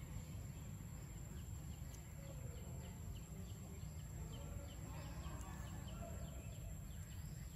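Forest ambience: a bird calling in a quick run of short, high, rising chirps, about three a second, over a steady low rumble.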